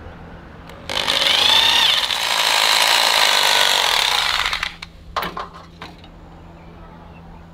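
Bosch Professional hammer drill boring a screw hole into a rendered masonry wall: it runs loudly for about four seconds from about a second in, then stops, followed by a few sharp knocks.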